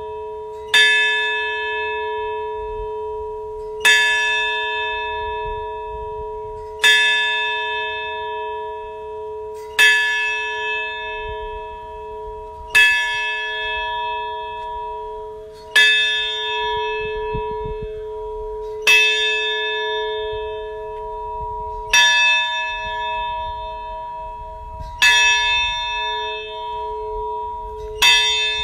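A large bell tolled slowly, one stroke about every three seconds, each stroke ringing on in a long hum that carries under the next.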